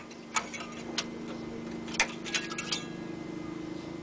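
A few sharp clicks and light metallic clinks of computer hardware being handled, over a steady low hum that sets in about a second and a half in.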